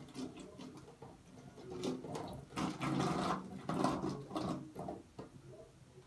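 Irregular light rattling, rustling and clicking of plastic as a bottle and a plastic container are handled, busiest in the middle.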